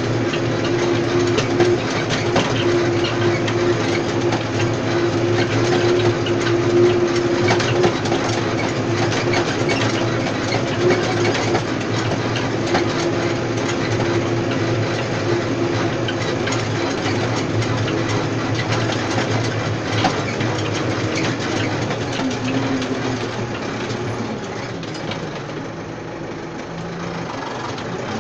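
Tractor engine running steadily under load while pulling a tine stubble cultivator through stony soil, with constant clatter and knocks from the tines, stones and frame. Near the end the sound eases and the engine note changes as the cultivator comes out of the ground.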